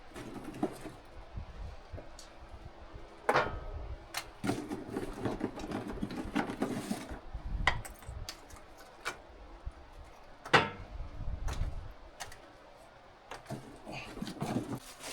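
Scattered knocks and clatters of things being handled, with a sharper knock about three seconds in and another about ten and a half seconds in, and a busier patch of clattering between them.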